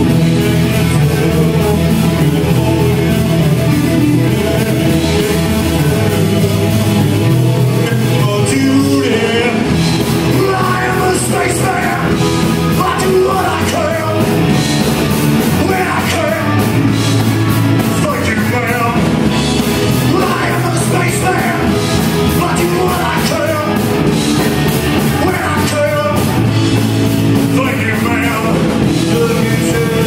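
Live rock band playing: electric guitar at first, with drums and a male lead singer coming in about nine or ten seconds in and carrying on.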